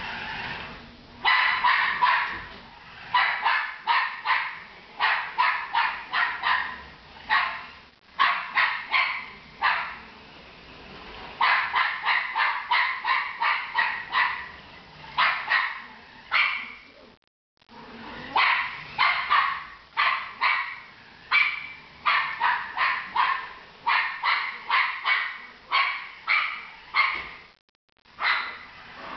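Jack Russell terrier barking in fast runs of short, sharp barks with brief pauses between them, agitated by a remote-control toy car.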